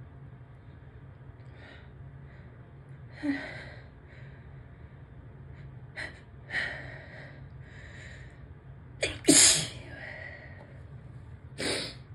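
A person's sneeze build-up: several gasping in-breaths, then sneezes, the loudest and sharpest about nine seconds in and another near the end.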